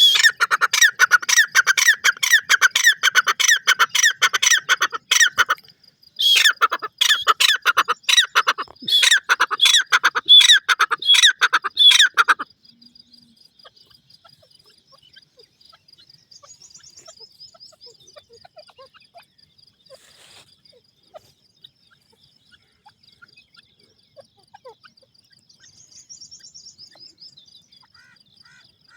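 A partridge-type game bird calls in a fast run of loud repeated notes. The run breaks briefly about five seconds in, then resumes and stops about twelve seconds in. After that only a faint steady high-pitched tone and a few faint chirps remain.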